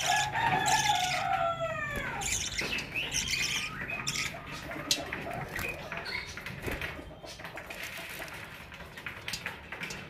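Budgerigars chattering: a run of falling whistled notes in the first two seconds, then a busy mix of high chirps and warbles that thins out in the second half.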